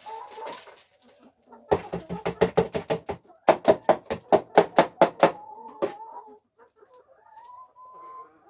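Backyard hens clucking: two quick runs of loud, sharp clucks between about two and five seconds in, followed by softer drawn-out calls.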